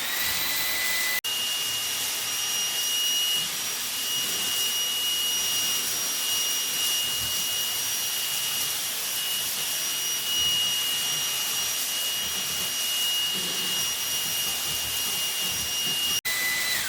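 Dreame V11 cordless stick vacuum's high-speed motor running: steady rushing airflow with a high electric whine. The whine rises as the motor spins up at the start, jumps higher in pitch after a brief dropout about a second in, and falls away as the motor spins down at the end.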